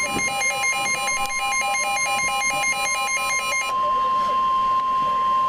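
Emergency Alert System weather radio alert: the NOAA Weather Radio's steady warning alarm tone, held unbroken. For the first two-thirds a rapid pulsing electronic beep plays over it, then stops, leaving the steady tone alone.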